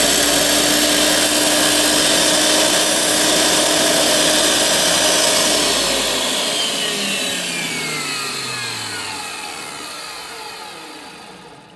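Wet tile saw's motor and diamond blade running with a steady whine and hiss while a resin dressing stone is pushed into the spinning blade to strip the buildup off the diamond edge. About six seconds in the motor is switched off and the blade winds down, its whine falling in pitch and fading.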